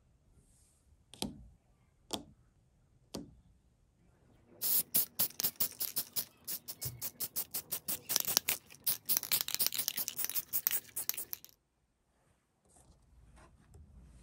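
An aerosol spray paint can spraying a small wooden square cut-out in quick short bursts, a rapid pulsing hiss that goes on for about seven seconds and then stops. Three short sharp knocks come before it.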